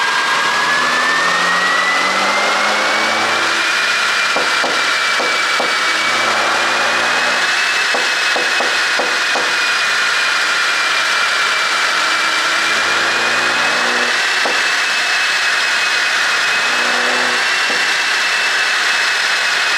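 2016 Mini Cooper S (F56) turbocharged four-cylinder engine running with the revs slowly rising and falling, under a steady high whine. Clusters of sharp exhaust pops come about four seconds in and again around eight to nine seconds: the overrun crackle that a pop-and-bang tune produces.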